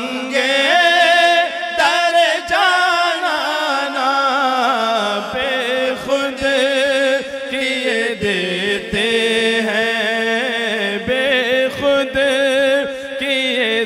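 Male voice reciting an Urdu naat, stretching one phrase into a long ornamented melody that winds and slowly falls in pitch, over a steady low drone.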